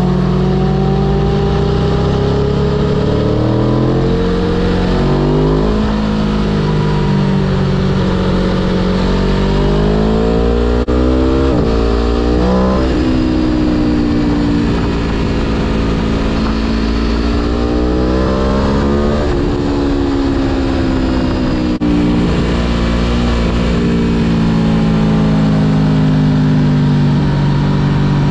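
Aprilia Tuono V4 Factory's V4 engine under way, its pitch climbing under throttle and dropping sharply several times as the rider shifts or rolls off, with steady wind rush underneath.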